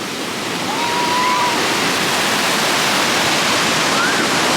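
Ocean surf washing up the beach close by, a steady loud rush. Faint thin high calls are heard over it about a second in and again near the end.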